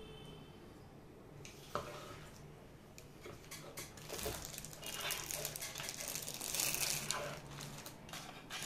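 Handling noise on a desk: a sharp click about two seconds in, then rustling and crinkling of plastic packaging with small knocks, loudest from about four to seven and a half seconds in, as a small streaming encoder and its cables are handled.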